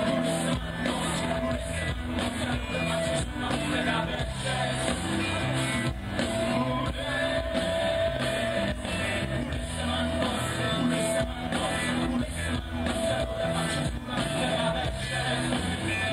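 Live band playing amplified music: a vocalist singing over steady drums and bass, as picked up from the crowd in an outdoor concert.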